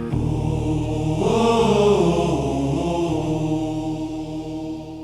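Closing bars of a ballad: a held chord with a wordless, choir-like vocal swelling in about a second in, then the music fades out at the end.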